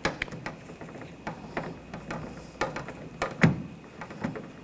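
Ratchet driving a T15 socket, clicking as it loosens the door handle's retaining screw. About a dozen uneven clicks and knocks, the loudest with a dull thud about three and a half seconds in.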